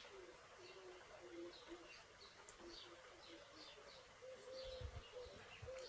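Faint birds calling: a run of short high chirps together with short low cooing notes, over a soft steady hiss of rain.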